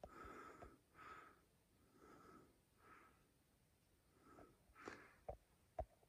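Faint, slightly wheezy breathing close to the microphone, about one breath a second, with a couple of small clicks near the end.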